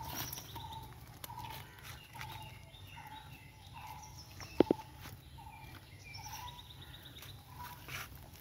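A bird repeating a short, slightly falling call about twice a second, with other birds chirping higher up. Two sharp knocks come about halfway through and are the loudest sound.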